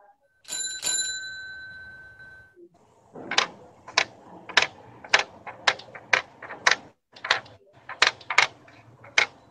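A bicycle bell rings twice in quick succession and fades over about two seconds. It is followed by a regular run of sharp clacks, a little under two a second.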